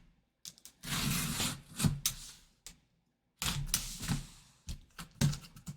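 A cardboard box being opened by hand: two stretches of scraping and rustling cardboard, then a run of sharp clicks and knocks near the end as the packaging is handled.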